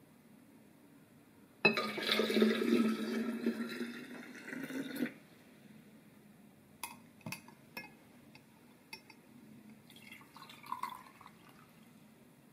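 Liquid poured into a glass carafe: a splashing pour starts suddenly about two seconds in and fades out a few seconds later. A few light clicks follow.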